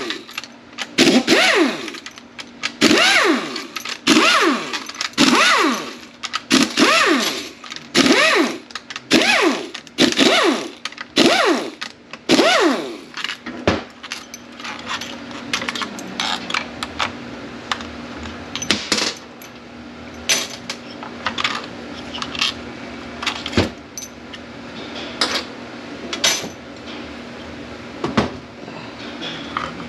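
A power tool running out 10 mm bolts from a 6T45E transmission's TEHCM control module in short bursts about a second apart, each rising and falling in pitch. After about 14 seconds come scattered clicks and clinks of metal parts being handled, over a steady low hum.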